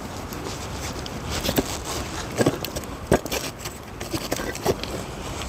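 Wood campfire crackling, with a handful of sharp pops a second or so apart.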